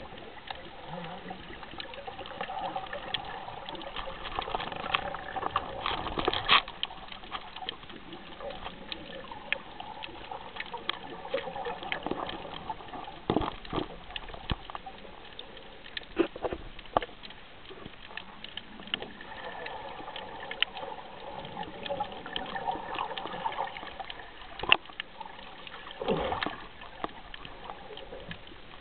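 Water sloshing and splashing around a snorkeler, with many scattered sharp clicks and taps. Louder splashes come about six seconds in and again twice near the end.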